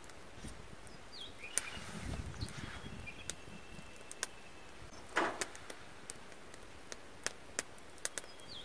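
Light clicks, taps and a brief scrape from hand food preparation: a table knife spreading cream cheese onto a nori sheet with rice. The scrape about five seconds in is the loudest sound, and a few faint short chirps sound in the background.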